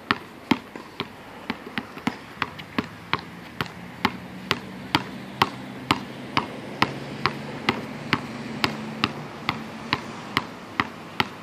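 Basketball dribbled low and fast on an outdoor hard court: a steady run of sharp bounces, about two to three a second.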